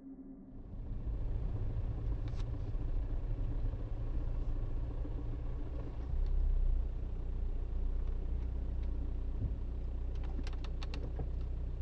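Steady low rumble of a motor vehicle running, with a light click about two seconds in and a few more clicks near the end.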